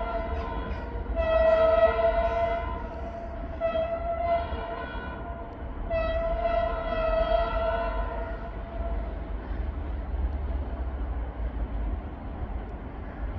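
Locomotive air horn sounding a series of held blasts of a multi-note chord: one already sounding at the start and ending within the first second, then three more, each about one and a half to two seconds long. From about eight seconds in, only the steady running noise of the train remains.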